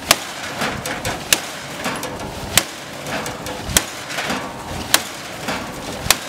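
Sledgehammer striking the metal body of a burned-out car, six sharp blows at a steady pace of about one every second and a quarter.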